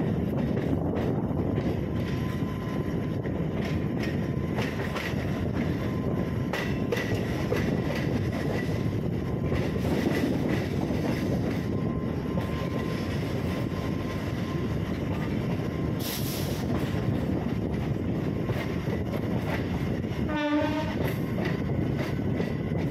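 MEMU electric multiple unit running along the line, a steady rumble of wheels on rail with some clickety-clack. There is a brief hiss about 16 seconds in and a short horn blast a little after 20 seconds.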